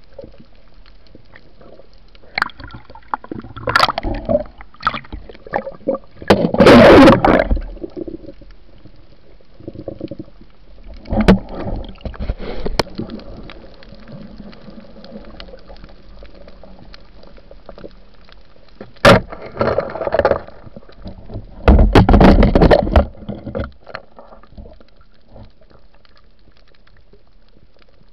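Water noise around a diver's camera in the sea: several loud bursts of splashing and bubbling, the biggest about seven seconds in and again around twenty-two seconds, over a steady low hiss, with a few sharp clicks.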